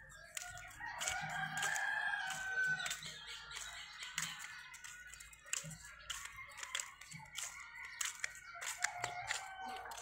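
A rooster crowing: one long crow starting about a second in and lasting around two seconds, amid scattered short clicks.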